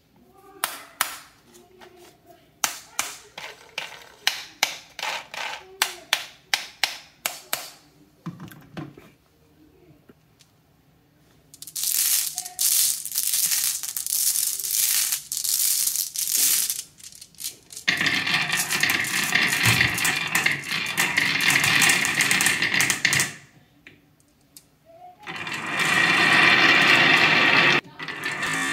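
Glass marbles clicking and clattering against each other and a wooden marble track: first a run of separate sharp clicks, then three long stretches of dense rattling clatter with short pauses between.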